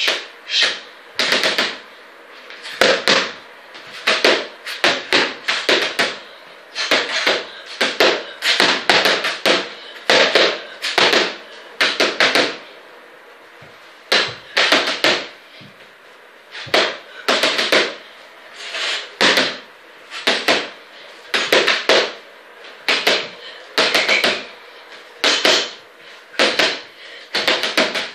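Boxing-glove punches landing in quick flurries of several sharp hits, a new flurry every second or two.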